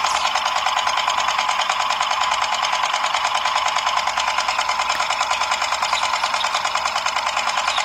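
Small electric gear motor and plastic gears of a toy tractor pulling a conveyor-belt peanut planter, running with a fast, steady, even buzzing rattle and a steady whine.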